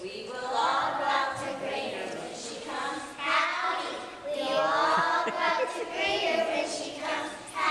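A group of young children singing a song together in phrases.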